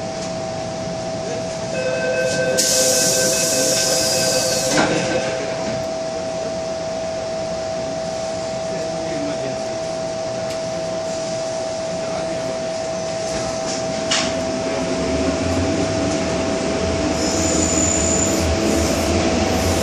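MTR M-Train at a platform, over a steady hum from its onboard equipment: the door-closing warning tones sound with a hiss about 2 seconds in, and the doors shut with a knock about 5 seconds in. From about 15 seconds a low rumble starts and builds as the train begins to pull away.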